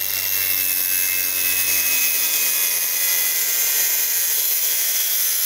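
Angle grinder running at speed with a thin cut-off disc, a steady high whine, while a hot dog is pushed against the spinning disc. The motor noise drops away right at the end.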